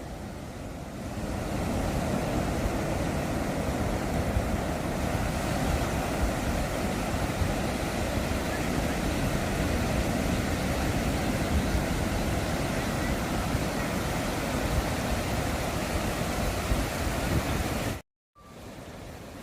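Steady wash of sea surf breaking on the beach, with wind rumbling on the microphone; it swells about a second in and cuts out briefly near the end.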